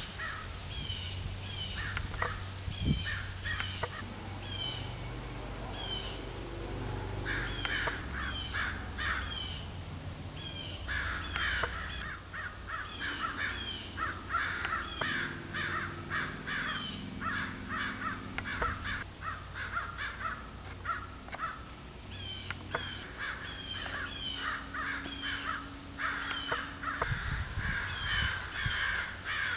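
A flock of crows cawing over and over in overlapping bursts, their mobbing calls at a perched owl. The calls thin out in a couple of short lulls and then pick up again. A smaller bird's short, high, falling note repeats in the background.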